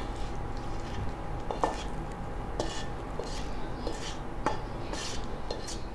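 A spatula scraping and tapping against a non-stick frying pan as saucy fish and tofu are pushed out of it onto a plate. It comes as a handful of short, separate scrapes and clicks over a low steady hum.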